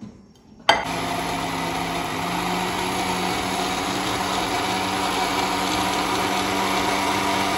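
Countertop blender motor starting suddenly under a second in and running steadily, blending a smoothie.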